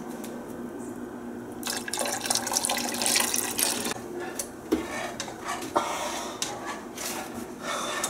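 Kitchen handling noises: a rush of noise for about two seconds, then a few sharp knocks and clinks as things in an overhead kitchen cabinet are moved about.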